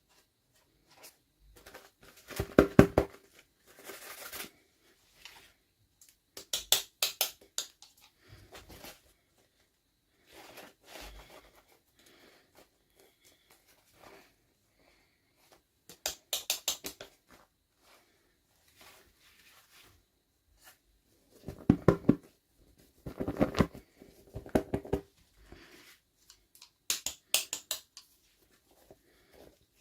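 Close-up unboxing sounds: bursts of crinkling, tearing and clicking packaging, each about a second long, separated by quiet pauses.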